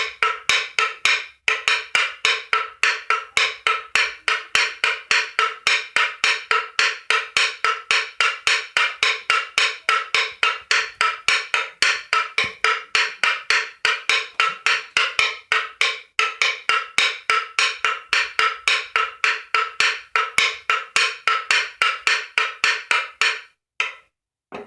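Wooden Easter clapper knocking in a steady, rapid rhythm of about three strokes a second, sounded in place of the church bells, which are silent over Easter. The knocking stops about a second before the end.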